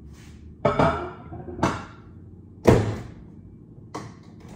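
Over-the-range microwave door being worked: four thunks and knocks, the loudest and sharpest a little over halfway through as the door is shut.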